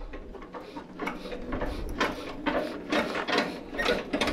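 Deutz F1M414 single-cylinder diesel tractor engine being hand-cranked with the decompression open: an uneven run of mechanical clicks and clatters, about two or three a second, with the engine not yet firing.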